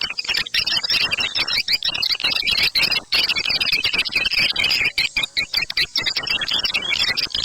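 Swiftlet lure call recording of the 'ceklok' type, played to attract edible-nest swiftlets to a bird house: a dense, near-continuous chatter of rapid high chirps and clicks, with a few very brief breaks.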